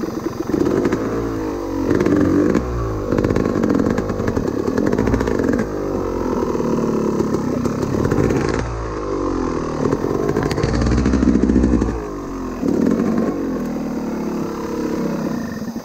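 Dirt bike engine revving in repeated surges, its pitch rising and falling several times.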